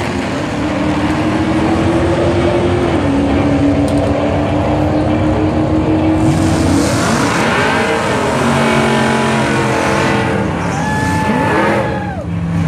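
Drag cars' engines revving hard at the starting line during a smoky burnout. The pitch is held high for long stretches, then shifts up and down with a rushing hiss from about halfway, and falls off sharply near the end.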